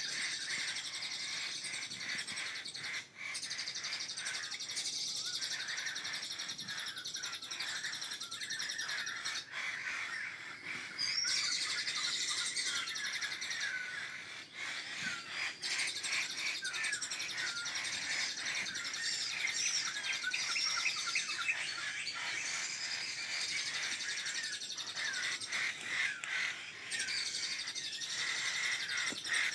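Many birds chirping and calling at once in tropical forest, with short trills and whistles overlapping without a break.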